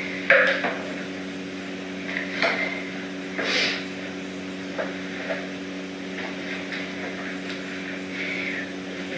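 Scattered light knocks and clatter of cat food bowls and a plastic toy being handled on the floor, with a short rustle about three and a half seconds in, over a steady low hum.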